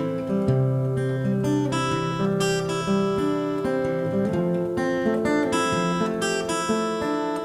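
Background music: acoustic guitar picking and strumming in the instrumental introduction of a song.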